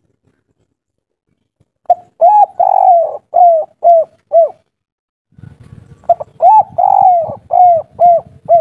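Spotted dove (tekukur) cooing two phrases with a pause between. Each phrase has two short notes, then a longer drawn coo, then three short closing notes: the 'kuk 3' coo type kept by dove hobbyists. A low rumbling noise sits under the second phrase.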